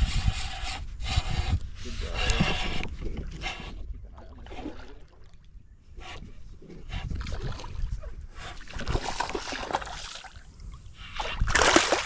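Water splashing and sloshing as a hooked snook is fought on a spinning rod and reeled toward a small skiff, with a sharper burst of splashing near the end as the fish thrashes beside the boat.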